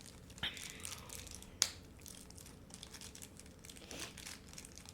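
Plastic toy packaging being crinkled and handled, with small clicks and one sharp snap about a second and a half in.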